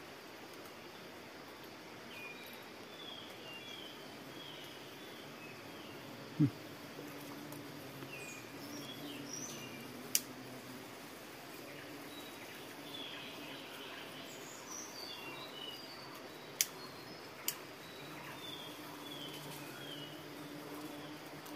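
Faint forest ambience: birds chirping in short, repeated high calls. A low hum comes in about eight seconds in, and there are a few sharp clicks, the loudest a thump about six seconds in.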